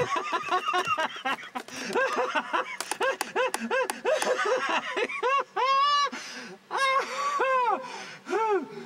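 A cartoon character's voice laughing in a long string of quick, bouncy syllables, each rising and falling in pitch. The syllables slow and stretch out in the second half.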